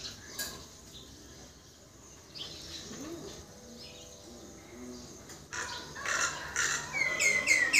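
Common myna calling: faint scattered notes at first, then a loud burst of chattering calls about five and a half seconds in, ending in a quick run of repeated short notes that each drop in pitch.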